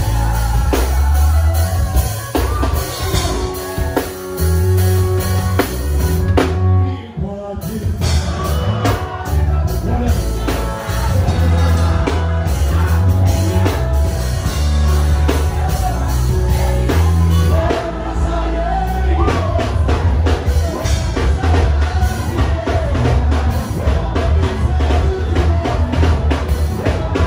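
Band music with singing over a drum kit and a heavy bass line, with a short break about seven seconds in.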